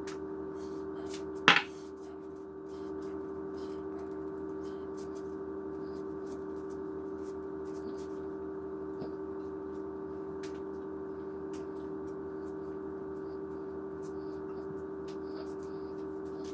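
A steady hum holding a few constant tones, with faint scattered ticks and one sharp click about one and a half seconds in.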